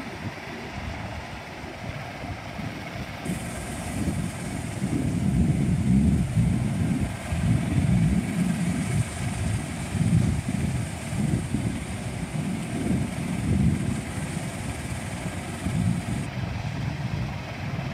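A De Havilland Canada Dash 8-400 (Q400) taxiing, its two Pratt & Whitney PW150A turboprops running with a low propeller drone. The drone swells louder a few seconds in and eases a little near the end.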